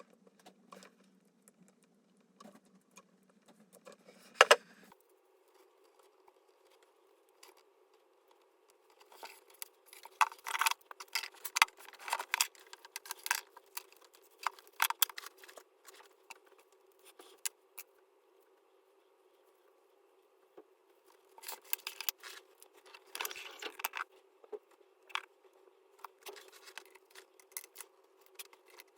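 Wire strippers and hand tools at work on power-cord wires: bursts of sharp metallic clicks and snips over a faint steady hum, with one sharp click about four seconds in and busier stretches in the middle and near the end.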